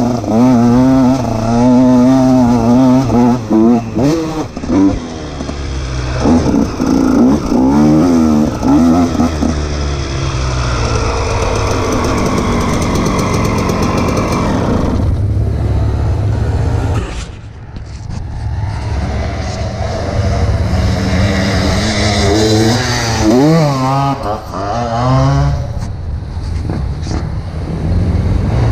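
KTM 125 SX single-cylinder two-stroke dirt bike engine being ridden hard, its revs rising and falling quickly and repeatedly with the throttle. About seventeen seconds in it drops off briefly before revving up again.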